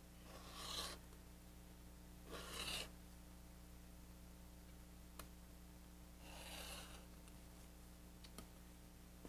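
Rotary cutter rolling through Minkee fabric and quilt batting along a ruler on a cutting mat: three faint cutting strokes, each under a second long, with a few light ticks between them.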